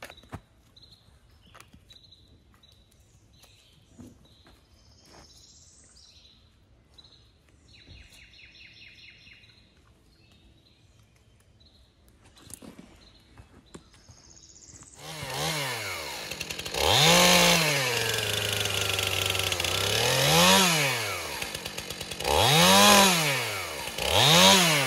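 Quiet for about the first fifteen seconds apart from a few faint clicks. Then a STIHL MS 291 gas chainsaw runs, revved up and down four times with a low idle in between, as it cuts into a fallen tree trunk.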